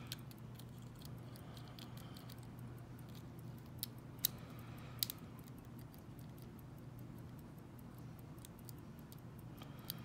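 Lock pick working the pins inside a small lock cylinder under a tension wrench: faint, irregular little clicks and scrapes, with a few sharper clicks around the middle, over a steady low hum.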